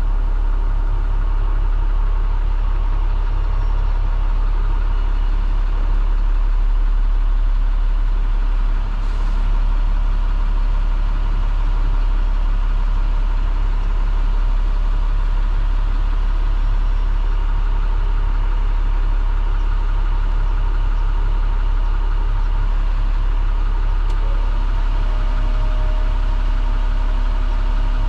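MaxxForce DT inline-six diesel of an IC CE school bus idling steadily, heard from inside the driver's cab. A steady higher hum joins near the end.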